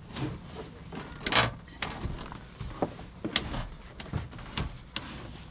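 Campervan seat being swivelled round on its swivel base by hand: a scrape about a second and a half in, then a series of short clunks and knocks as the seat is worked into place.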